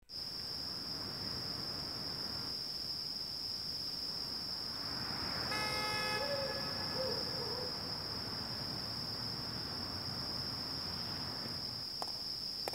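Quiet night-time outdoor ambience: a low rumble under a steady high-pitched whine. About five and a half seconds in, a horn-like tone sounds for about two seconds.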